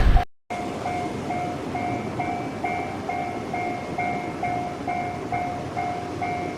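Japanese level-crossing warning alarm ringing its repeated "kan-kan" tone, about two strokes a second, warning that a train is approaching. A passing train's noise cuts off abruptly right at the start.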